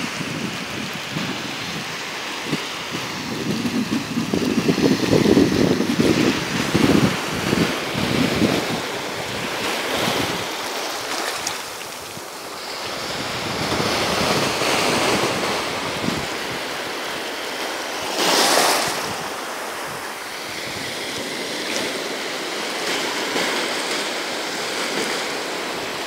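Small waves breaking and washing up a sandy beach, a steady rush of surf, with a brief louder wash about eighteen seconds in. Wind buffets the microphone in gusts during the first several seconds.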